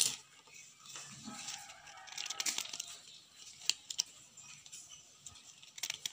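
Paper pages of a small flipbook rustling and flicking as they are handled and thumbed through, with a few sharp clicks.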